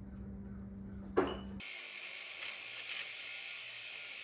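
Metal lathe in a small machine shop running with a steady motor hum, then an abrupt change about a second and a half in to a steady high-pitched hiss and whine of machining. A brief voice-like sound comes just over a second in.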